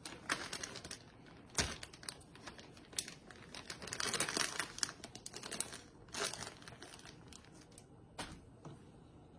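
Plastic bag of shredded cheddar cheese crinkling as it is handled, a run of irregular crackles that is busiest about four to five seconds in and thins out near the end.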